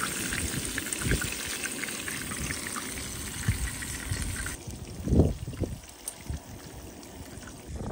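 Floured smallmouth bass frying in hot oil in a pan, a steady crackling sizzle. About four and a half seconds in it drops quieter, and a short knock sounds about five seconds in.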